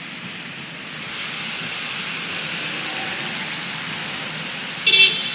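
Steady road traffic noise heard from inside a car on a rainy street, swelling about a second in. A short, loud, high-pitched sound cuts in near the end.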